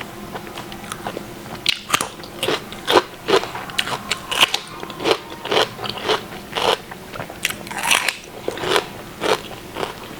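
A person chewing a big mouthful of food close to the microphone, with crisp, crunchy mouth sounds at about two a second.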